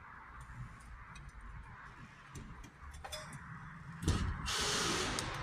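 Light clicks and taps of a metal drywall profile being held against a plasterboard ceiling. About four seconds in comes a sharp knock, then a cordless screwdriver drives a screw through the profile into the ceiling, a harsh whirring hiss near the end.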